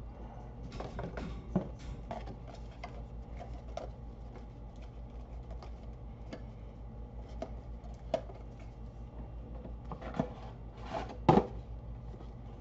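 Cardboard packaging and small parts being handled: scattered light clicks and rustles, with one louder knock about eleven seconds in, over a steady low hum.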